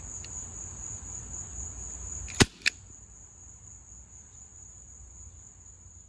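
A Bug-A-Salt salt gun firing once, a single sharp shot followed about a third of a second later by a smaller snap. A steady high insect trill, like crickets, continues behind it.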